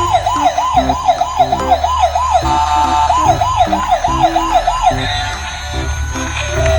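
Electronic siren warbling rapidly, about four rises and falls a second. It holds a single steady tone for a moment near the middle, and about five seconds in it fades into a steadier, fainter tone. Background music with a bass line plays underneath.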